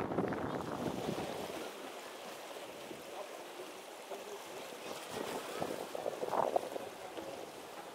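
Wind buffeting the microphone for the first second or two, then small waves washing over shoreline rocks, with people talking faintly in the background.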